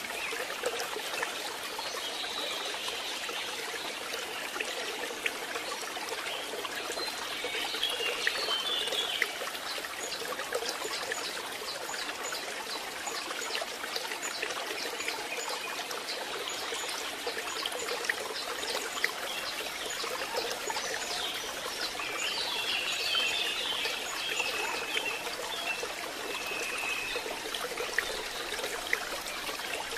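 Steady rain falling, a continuous hiss with scattered drips.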